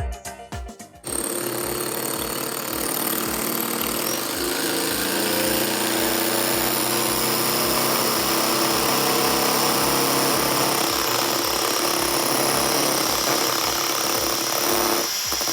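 Electric beater starting about a second in and running steadily, whipping egg whites in a bowl. A faint background music beat runs underneath.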